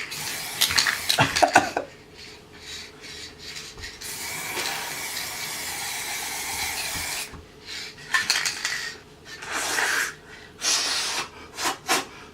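Aerosol spray-paint can in use: short sprays and clinking at first, then a steady hiss of spraying for about three seconds, then more short sprays.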